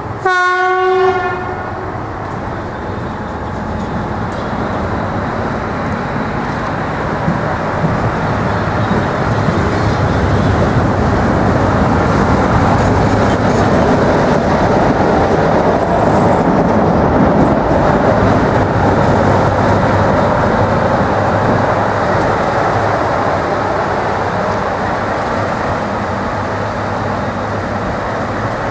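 Diesel locomotive on shunting moves sounding its horn once, about a second long, then its engine running and wheels rolling on the rails as it passes close by, loudest around the middle.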